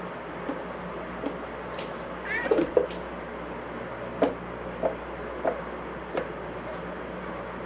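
A domestic cat gives one short, rising meow a little over two seconds in. Light taps and knocks come with it and follow it every half second or so, over a steady low hum.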